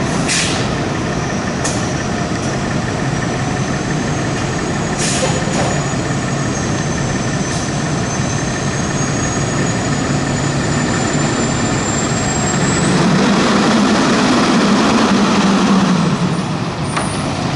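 Diesel engine of a 2016 Spartan Gladiator fire engine running steadily, with a few short air-brake hisses, then revving louder for a few seconds past the middle as the truck pulls out.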